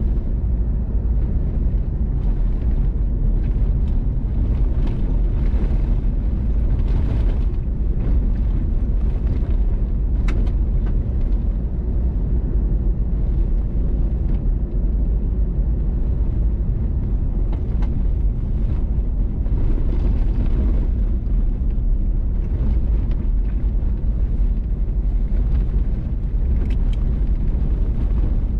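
Vehicle driving on a gravel road: a steady low rumble of tyres and engine, with a few sharp ticks.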